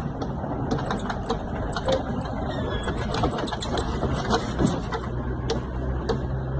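Car running, heard from inside the cabin: a steady low engine and road hum with scattered small clicks and rattles.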